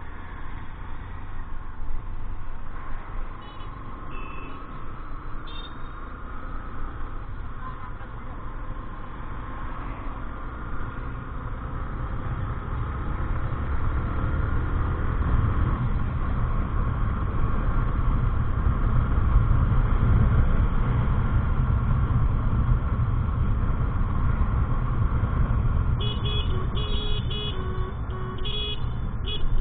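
Road traffic: a steady low rumble of vehicles that grows louder about halfway through. A few short high beeps come about four seconds in, and near the end a vehicle horn sounds in a quick run of short toots.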